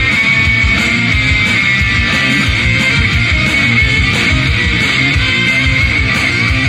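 Rock music with electric guitar played loud through an active PA speaker kit: double-15-inch subwoofer cabinets with 3x12-inch top cabinets, putting out heavy bass.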